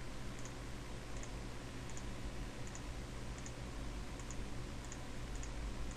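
Faint computer mouse clicks, each a quick double tick, about once a second over a steady low hum and hiss.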